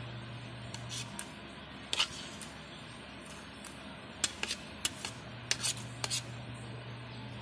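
Metal spoon clinking and scraping against a plate of rice: short, sharp clicks in small clusters, over a low steady hum.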